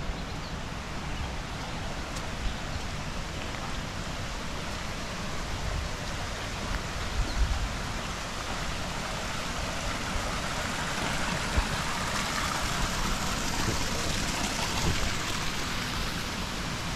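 Shallow stream water running over gravel and stones, a steady rushing that grows louder in the second half, with a few low thumps.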